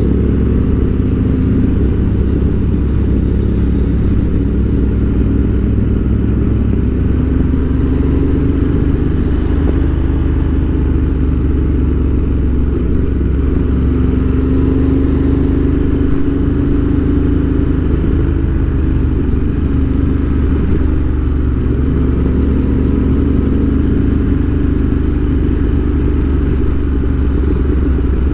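Ducati Monster 1200 S's 1198 cc L-twin engine running steadily while cruising, heard from the rider's seat. Its note rises and falls gently with the throttle.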